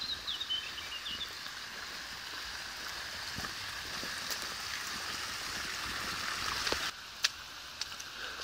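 Fountain jets splashing steadily into a stone basin, growing slowly louder and then dropping off suddenly about seven seconds in, with a few sharp ticks after. A bird chirps briefly at the start.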